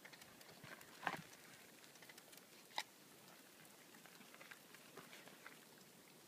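Near silence: faint outdoor background hiss broken by a few soft, short ticks, the clearest about a second in and near three seconds in.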